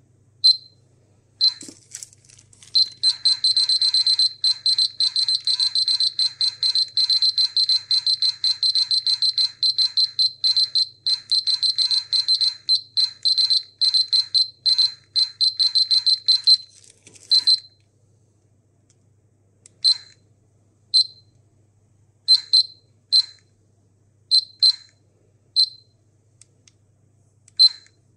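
Polimaster PM1703-GNA radiation dosimeter beeping in a high pitch. It beeps fast and densely for about fourteen seconds, then gives single beeps at irregular gaps of a second or two. The beep rate follows the radiation count rate the detector is picking up.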